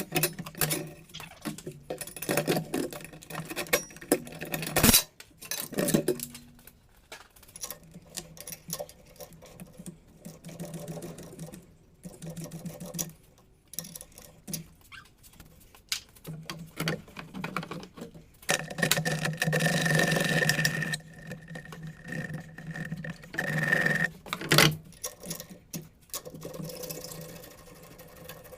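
Tools at work on the truck's metal parts: rapid, irregular clicking and clanking, with two short bursts of a whirring power tool about two thirds of the way through.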